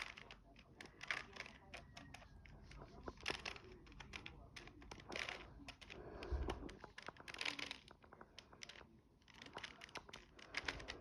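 Rubik's cube layers being twisted in quick succession: a faint run of irregular plastic clicks and rattles, some in quick clusters.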